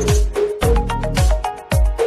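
Music with a steady beat: deep thumps about twice a second under a melody.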